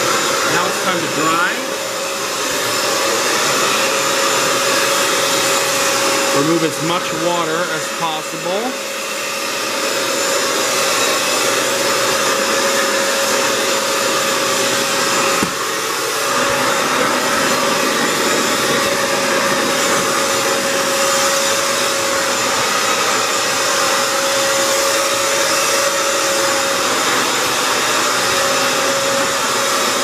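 Hoover FloorMate Edge hard-floor wet cleaner running continuously: its suction motor gives a steady rushing noise with a constant whine as it scrubs and sucks dirty water off a tile floor.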